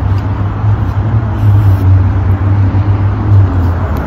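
A vehicle engine running close by: a loud, steady low rumble that swells in the middle and eases off near the end.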